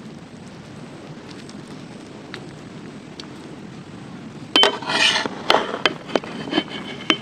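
Metal utensil clinking and scraping against a large metal cooking pot: a run of sharp clinks with short ringing from about four and a half seconds in, after a few seconds of faint, steady background.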